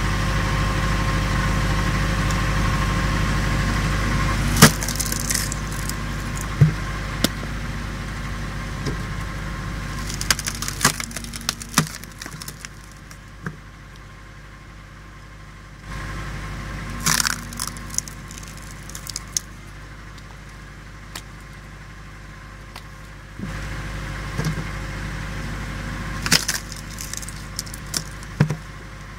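Hydraulic log splitter running steadily, its motor and pump getting louder each time the ram forces the wedge into a log. The wood gives way with a loud sharp crack about five seconds in, again a little past the middle and again near the end, with smaller cracking and splintering between.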